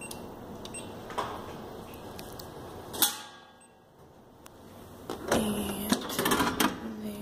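Snack vending machine dispensing: a single sharp knock about three seconds in as the item drops into the delivery tray, then clattering and rubbing near the end as the push flap of the tray is worked.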